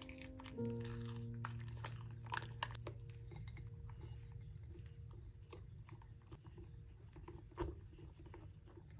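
Silicone whisk beating thick almond cream batter in a glass bowl: irregular soft clicks and wet scraping against the glass. Quiet background music with a held chord that slowly fades plays under it.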